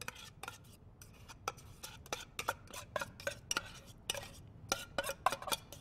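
A fork scraping and tapping inside a tin can and against a stainless-steel mixing bowl as drained tuna is worked out of the can: an irregular run of light metal clicks and clinks, a few a second.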